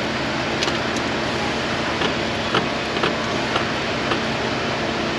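Steady mechanical hum and hiss of background machinery, with scattered light metallic clicks as hands work at a truck engine's alternator.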